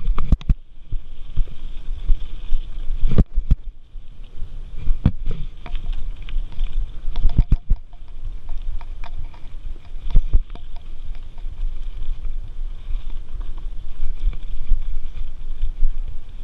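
Mountain bike riding down a dirt singletrack: a steady low wind rumble on the microphone, with rattles and several sharp knocks from the bike jolting over bumps and roots.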